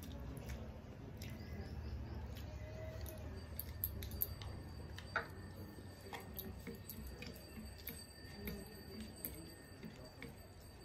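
Eating by hand: rice being squished and mixed with fingers on plastic plates, with chewing, and scattered small clicks and smacks over a low steady hum.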